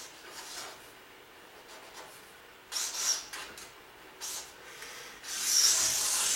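Scraping and rubbing on cardboard moving boxes as they are handled: short scrapes about three and four seconds in, then a longer, louder scrape near the end.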